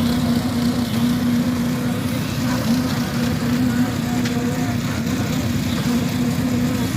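Construction machinery at a concrete pour running steadily: an engine-driven drone with a constant hum under a dense low rumble.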